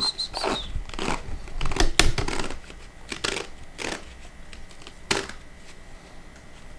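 Crinkling, tearing rasps of self-adhesive vet wrap being pulled off its roll and wound around a leg, in several short bursts, loudest about two seconds in. A brief high, wavering squeak sounds at the very start.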